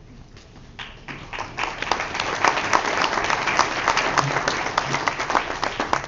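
Audience applauding, building up about a second in and dying down near the end.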